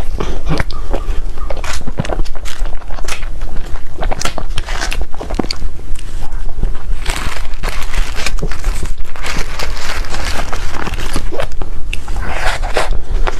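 Close-miked biting and chewing of cake: a dense run of irregular crisp crackles and crunches, over a steady low hum.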